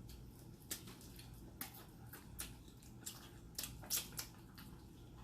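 A person chewing and smacking food with the mouth close to the microphone, giving a string of short, wet, irregular clicks, the loudest about four seconds in.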